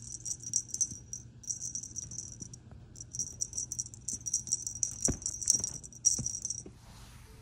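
Small bell inside a cat wand toy's fluffy pompom jingling in quick bursts as the toy is shaken and batted by a kitten, with two brief pauses and a couple of soft knocks near the end.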